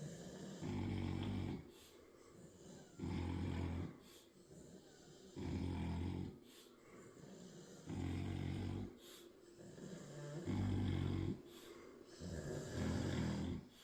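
A sleeping person snoring in a slow, even rhythm: six deep snores, each just under a second long and about two and a half seconds apart, with quieter breaths between them.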